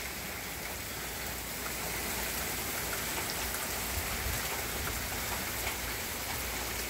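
Steady rain falling on lawns, road and porch, an even hiss of rain with scattered drops from the roof edge.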